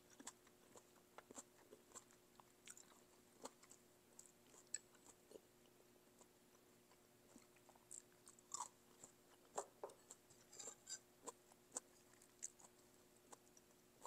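Faint close-miked chewing of a mouthful of beef tendon and noodles: scattered small wet mouth clicks and smacks, coming thicker about eight to eleven seconds in.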